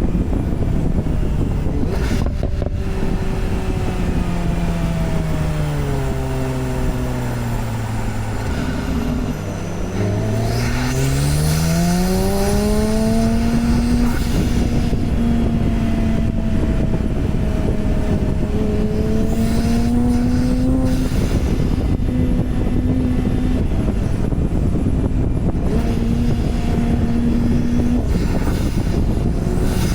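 Porsche 991 Turbo's twin-turbo flat-six engine heard while driving, over steady road noise. The engine note falls for several seconds as the car slows, then rises steeply about ten seconds in as it accelerates, and settles to a steady cruise for the rest.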